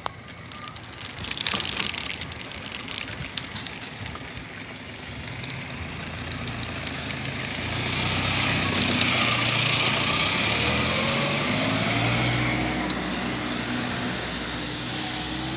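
Motor vehicle engine running close by, getting louder from about halfway in and then holding steady.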